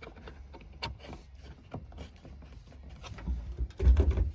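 Light clicks and knocks of parts being handled and fitted on a car, with a few heavier knocks and thuds near the end.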